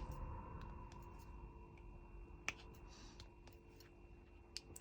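A few faint, light clicks of diamond painting drills being tapped onto the canvas with a drill pen, the sharpest about two and a half seconds in, over a faint steady room hum.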